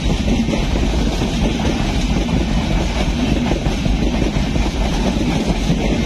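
LHB passenger coaches of an express train passing at speed close by: a steady, loud rush of wheel and rail noise with a heavy low rumble.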